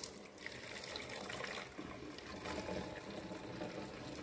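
A faint, steady trickle of petrol and water being poured from a measuring tube into a bottle without a funnel.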